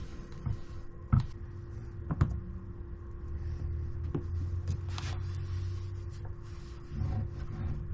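Board balm being rubbed into a wooden cutting board by hand, a faint scratchy rubbing, with two sharp knocks about one and two seconds in as the board is handled, over a low rumble and a steady hum.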